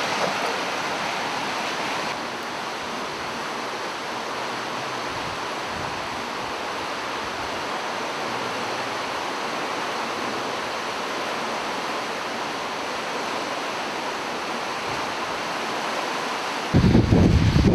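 Steady rushing noise of a rain-swollen river running high, close to flood level.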